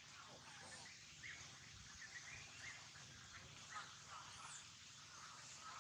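Faint, scattered short chirps and squeaks from small animals, over a low background hum.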